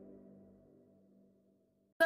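Background music fading out, dying away to dead silence within the first second.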